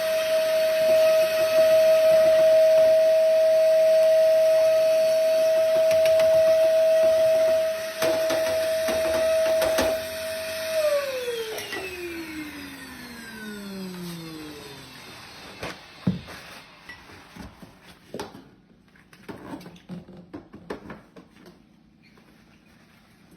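Vacuum cleaner motor running with a steady whine, switched off about eleven seconds in and winding down with a falling pitch. Scattered knocks and clicks of handling follow.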